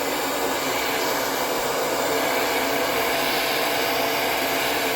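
L'ANGE hand-held hair dryer running steadily: an even rush of blown air with a steady motor hum underneath.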